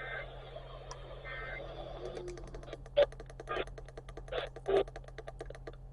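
EAS end-of-message data bursts over weather-radio hiss: two short, buzzy two-tone digital bursts about 1.4 s apart, closing the alert. From about two seconds in comes a fast, even run of clicking, like typing, broken by a few short louder bursts.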